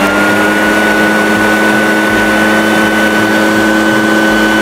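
Echo PB-580T backpack leaf blower's two-stroke engine running loud and steady at high speed, its throttle held by the cruise-control lock, the pitch holding level.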